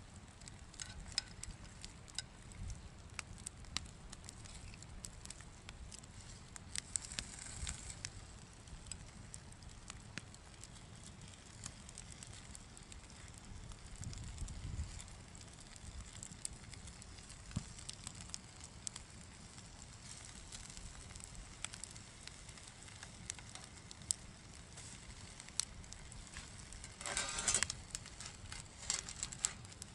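Wood campfire burning, with frequent sharp crackles and pops over a low steady rumble of the flames. Near the end a short, louder rush of noise stands out.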